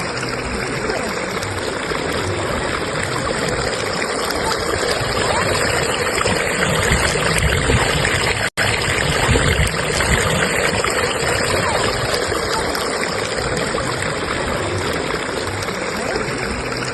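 Stream current rushing and gurgling steadily over rocks. The sound cuts out for an instant about halfway through.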